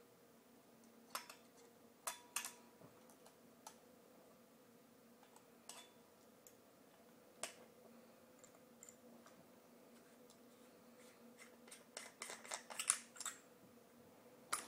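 Sparse small metallic clicks and taps of an Allen key and fingers working screws in a Dangerous Power G3 paintball marker's trigger frame, with a quick run of clicks near the end.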